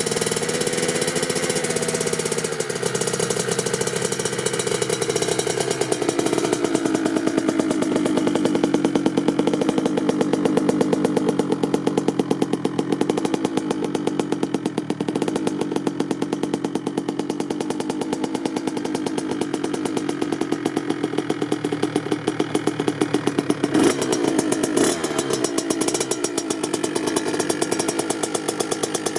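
Kawasaki KX65's single-cylinder two-stroke engine running at low revs, with the revs dropping in the first few seconds and a brief rev change near the end.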